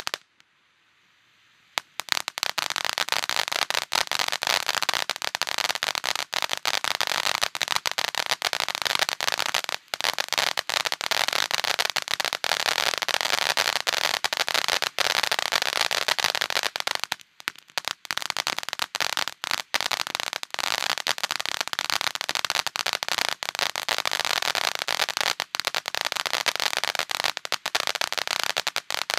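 Red Rhino Twilight Fright 500-gram firework fountain burning: a dense spraying hiss packed with rapid crackling pops. It starts after a second or two of near silence and dips briefly just past halfway.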